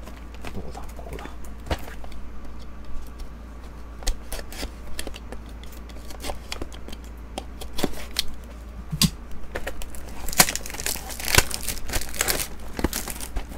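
The plastic wrap and packaging of a sealed trading-card hobby box are torn and crinkled as the box is opened, with scattered rustles and clicks. The sound grows busier and louder over the last few seconds.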